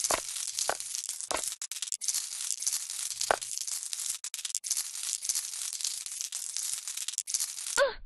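Dense crackling, crinkling noise full of small clicks, with four sharp knocks in the first few seconds and a short pitched swoop near the end before it cuts off.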